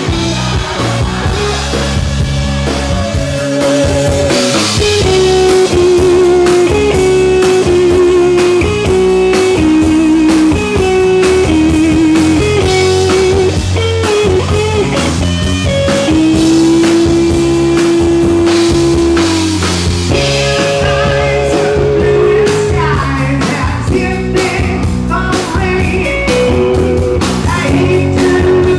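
Live rock band playing: a lead melody of held, wavering notes over bass and drums, with one long held note a little past the middle.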